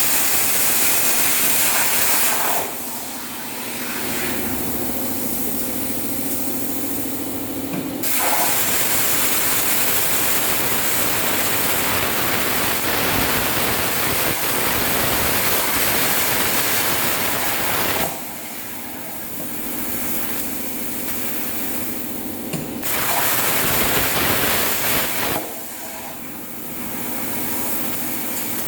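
CNC plasma cutter's torch hissing loudly while cutting, in long stretches that stop and restart several times. In the pauses a steadier, quieter machine hum remains.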